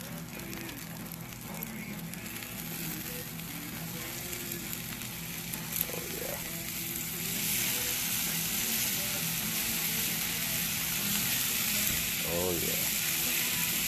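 T-bone steaks sizzling on a hot flat-top steel griddle over a fire pit. About six seconds in, a sharp click of the metal tool on the griddle comes as the steaks are flipped. The sizzle then grows clearly louder as the raw sides hit the hot steel.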